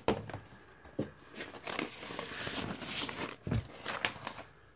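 Paper inner sleeve and cardboard album jacket rustling and scraping as a vinyl LP is slid out by hand, with a few light knocks from handling.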